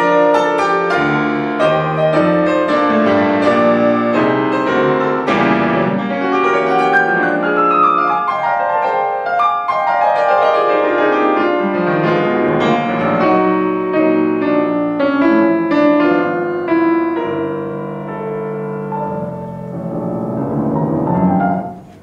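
Yamaha grand piano played at full tone in a fast passage of dense chords and runs, with long falling runs in the middle. It breaks off suddenly at the end.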